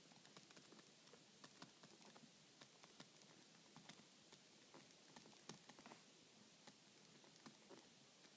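Faint, irregular ticks and taps of a stylus tip on a tablet screen fitted with a screen protector, as words are handwritten.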